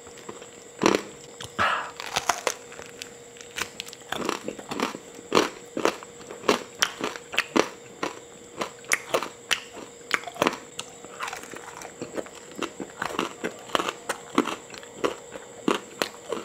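A person biting and chewing a rolled rice-paper snack, with irregular wet smacks and crunchy clicks a few times a second.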